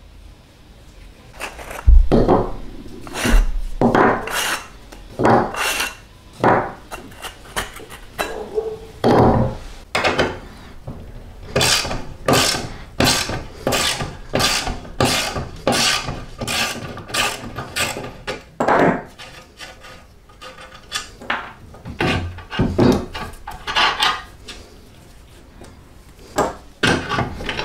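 Hand-tool work on a rusty reel mower: a socket ratchet wrench turned in short strokes, its pawl rasping, in a run of about two strokes a second through the middle. A heavy knock of a metal part on the wooden bench about two seconds in is the loudest sound, with scrapes and clinks of loose parts between.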